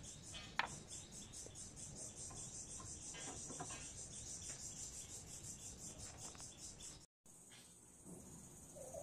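Insects chirping in a high, rhythmic pulse, with one sharp click about half a second in. Near the end the sound breaks off briefly and then goes on as a steadier high drone.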